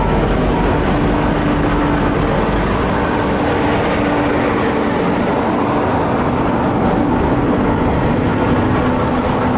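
Diesel railcars (a KiHa 28 and a KiHa 52) running past at close range: the underfloor diesel engines hum steadily over the rumble of the wheels on the rails.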